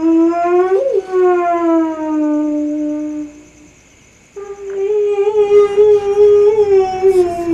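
Eerie, drawn-out wailing tones on the soundtrack: a long held note that wavers, sags slightly and fades out about three and a half seconds in, then after a short silence a second, slightly higher held note that wavers gently.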